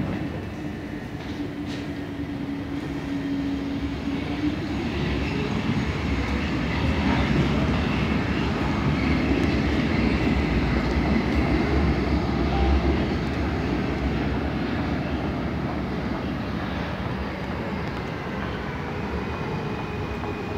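Munich U-Bahn trains running through an underground station. A steady hum in the first few seconds gives way to a rumble that swells to a peak about ten seconds in and then slowly fades.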